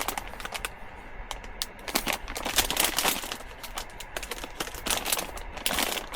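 Plastic snack bag of cheese puffs crinkling and crackling as it is handled and opened, in uneven bouts, loudest about two to three seconds in and again near the end.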